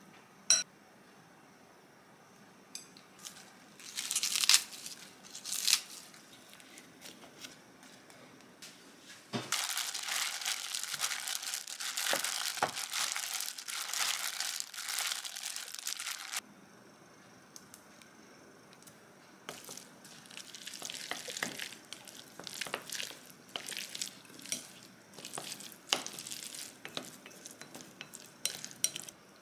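A hand in a disposable plastic glove mixes a seafood salad in a glass bowl, and the glove crinkles and rustles continuously for about seven seconds in the middle. Before and after that, chopsticks click, tap and scrape against the glass bowl as ingredients are added and tossed, including one sharp click about half a second in.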